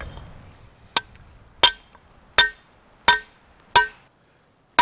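Hand hammer striking a hot mild steel rod on a small anvil, forging an arrowhead. A steady series of about six ringing metallic blows comes roughly one every three quarters of a second, with a slightly longer pause before the last.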